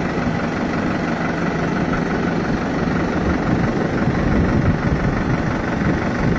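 Tractor diesel engine running steadily while it powers the hydraulic boom being lowered. A steady low hum fades about halfway through, leaving a rougher engine sound.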